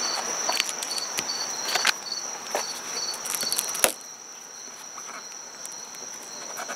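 Insects chirping steadily, a high pulsing chirp a couple of times a second over a constant high hum. Over it come scattered small clicks and scrapes as a plastic window trim strip is pried and pulled out of a Beetle's rear window rubber seal, with a sharp click about four seconds in.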